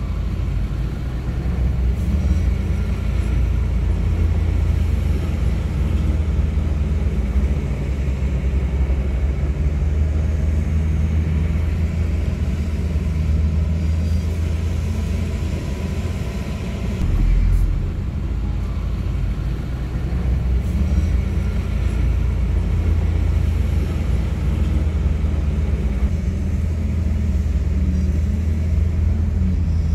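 Heavy diesel engines of bulldozers working in mud, running steadily with a deep rumble; the sound swells briefly a little past the middle.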